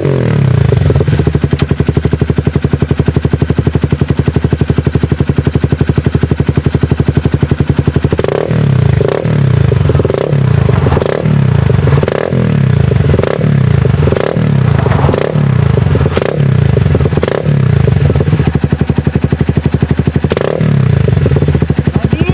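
Honda CBR sportbike with an aftermarket M4 carbon exhaust idling, with a run of quick throttle blips about once a second lasting some ten seconds from about a third of the way in, and one more blip near the end.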